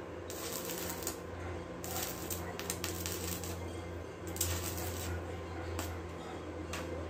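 Stick (covered-electrode) arc welding on a truck cab's sheet-steel floor panel: the arc crackles and sputters in short runs, breaking off and restarting every second or so, over a steady low hum.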